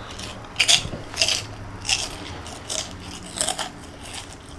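A person chewing crunchy pork rinds: about five crisp crunches, spaced a little under a second apart.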